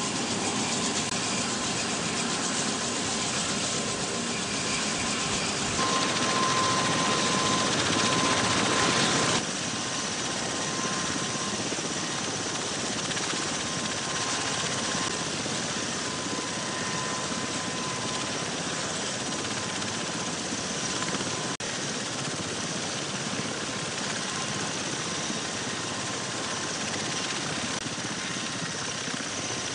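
A running engine, heard as a steady noise, with a louder stretch from about six to nine and a half seconds in that starts and stops abruptly.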